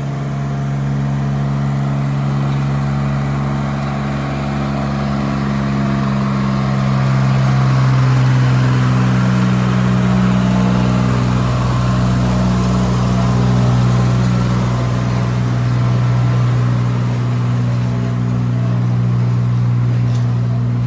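Planet locomotive's engine running steadily with a strong low hum, swelling louder and rougher through the middle as it works harder, then settling again.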